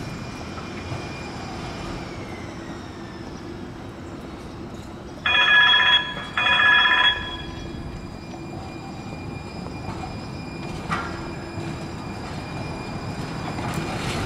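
Streetcar rail noise, a steady rumble with faint high wheel-squeal tones. Two short horn blasts about five to seven seconds in.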